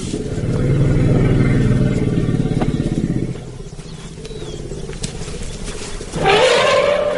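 Lion growling deeply for about three seconds, then a short snarling roar that rises and falls near the end.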